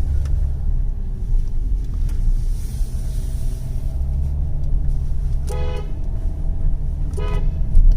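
Audi Q7 driving, a steady low road and engine rumble, with two short car horn toots about five and a half and seven seconds in.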